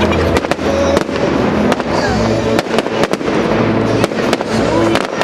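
Fireworks display going off: a rapid, irregular series of sharp bangs and crackles, over music with held low notes.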